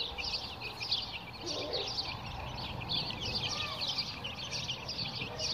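Many small birds chirping together in a dense, continuous chorus of short, overlapping high chirps.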